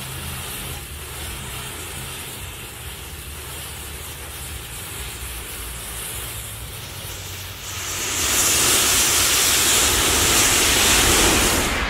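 Packed matchsticks igniting one after another in a chain, a steady hiss of flaring match heads. About eight seconds in it grows much louder as the mass of matchsticks in the volcano sculpture catches and flares up in a large burst of flame.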